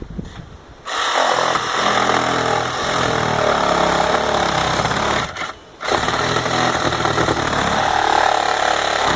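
Electric power saw cutting into a wall, run in two long bursts with a brief stop a little past five seconds in, its pitch shifting as the blade bites.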